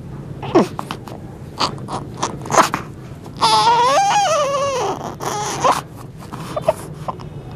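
A baby vocalizing, with short squeaks and breathy sounds, then about three and a half seconds in a louder, wavering, high-pitched cry that falls in pitch over about a second and a half.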